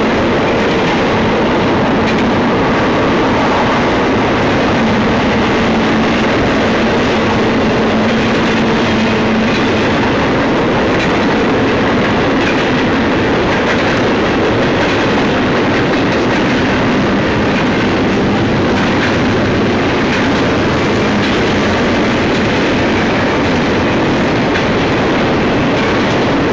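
Union Pacific intermodal freight train's double-stack container cars rolling past: a loud, steady rumble of steel wheels on rail, with clicks from the wheels.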